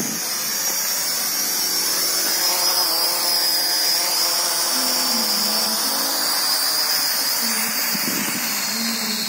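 Z5 quadcopter drone's propellers and motors whining as it comes down and lands, then keep spinning on the ground; a steady high whine that slowly falls in pitch.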